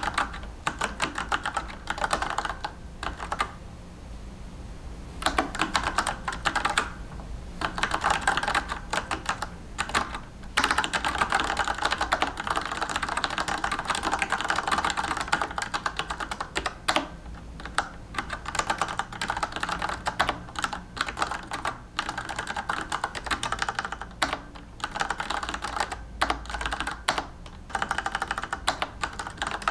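Fast, continuous typing on a Penna retro mechanical keyboard with brown switches and chrome keycaps: a steady stream of keystroke clacks, with a short break about four seconds in.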